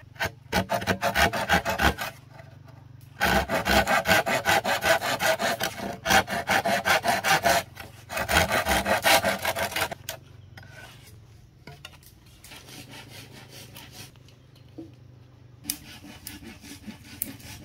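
Rapid rhythmic rasping strokes, about four a second, in three bursts of a few seconds each, then quieter scattered scraping, over a steady low hum.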